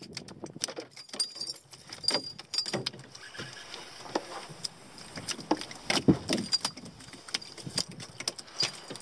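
Irregular clicks, taps and light rattles of fishing gear being handled in a small boat, with one louder knock about six seconds in.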